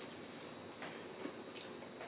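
A few faint taps of a finger on a smartphone touchscreen while typing a search, over quiet room tone.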